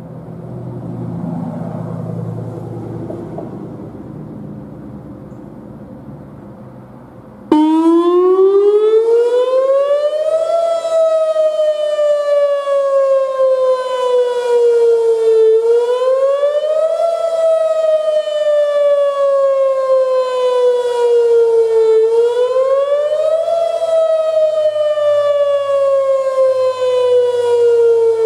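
A low background rumble, then a Whelen WPS-2805 electronic outdoor warning siren cuts in abruptly about seven and a half seconds in, loud, sounding its wail. The pitch sweeps up quickly and then falls slowly, over and over, about every six and a half seconds. This is the monthly test of the warning siren system, not a real alert.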